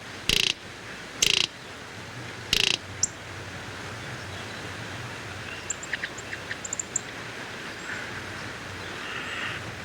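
Three short, harsh, rasping calls from a greater roadrunner in the first three seconds, then a few faint, high chirps from small birds against steady outdoor background noise.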